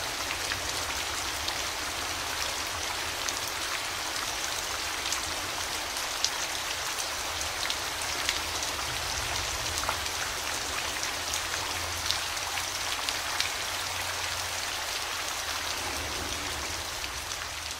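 Steady rainfall, with individual drops ticking sharply on a surface through the even hiss and a low rumble underneath.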